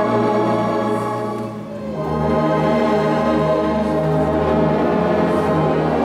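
Massed trombones with tubas playing a slow hymn in full, sustained brass chords. The sound eases briefly about a second and a half in, then swells into the next chord with a deeper bass.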